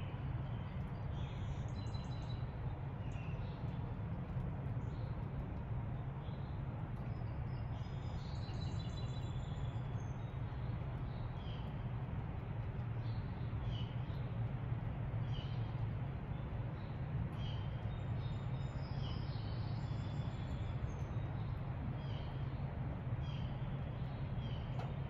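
Wild songbirds chirping and singing, with short high chirps every second or two and fuller song phrases about two seconds in and around eight to ten seconds in, over a steady low rumble.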